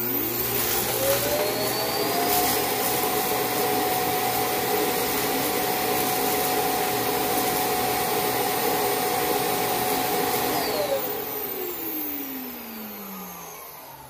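Proscenic M7 Pro self-emptying station's suction motor pulling debris out of the docked robot's dustbin, with a loud rush of air. The whine rises as it spins up, holds steady for about ten seconds, then falls away as the motor winds down near the end. It sounds like a lot of material being removed.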